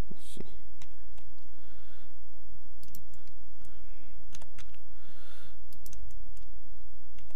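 Computer keyboard keys and mouse buttons clicking at irregular moments, with a steady low hum underneath.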